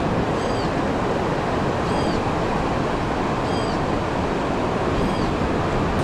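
Ocean surf on a sandy beach: a steady rush of breaking waves. A faint, short, high chirp repeats about every second and a half over it.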